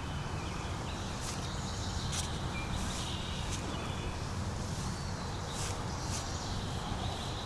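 Wind rumbling on the microphone outdoors, with faint bird calls and a few light ticks.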